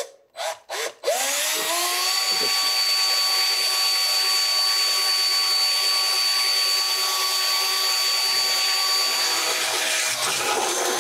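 Black+Decker cordless drill with a hole saw cutting a hole through a plastic box panel. A couple of short trigger blips come first; about a second in, the motor spins up with a rising whine and then runs steadily at speed.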